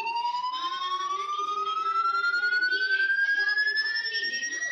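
A pure, whistle-like electronic tone sliding slowly and steadily upward in pitch, cutting off abruptly at the end, with a quieter wavering sound underneath.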